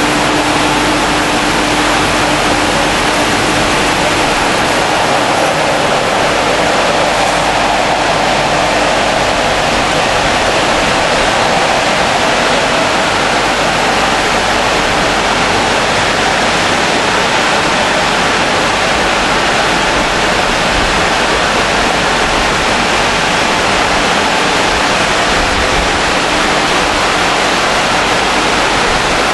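Automatic car wash in operation: a steady rushing noise of water spray and rotating brushes, with a low motor hum that fades out about a third of the way in.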